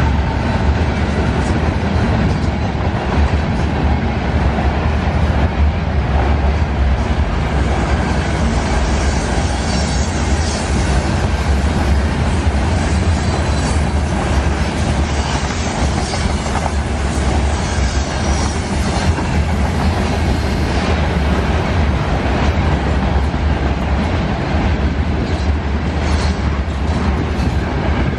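A freight train of covered hopper cars rolling past at speed: a steady loud rumble of steel wheels on rail with clatter over the track, and a faint high squeal now and then around the middle.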